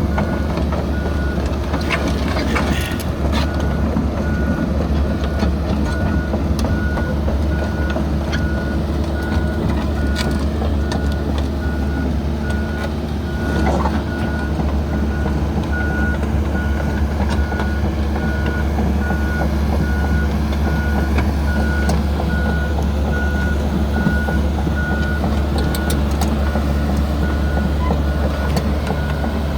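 A 2005 Komatsu PC160LC-7 hydraulic excavator's diesel engine running steadily, with its warning alarm beeping over and over at an even pace. Occasional clanks come through.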